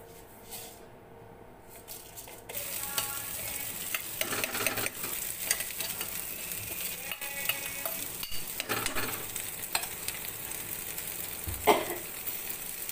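Coarsely ground green pea paste hitting hot mustard oil in a kadhai, sizzling suddenly about two and a half seconds in, then frying with a spatula scraping and stirring through it.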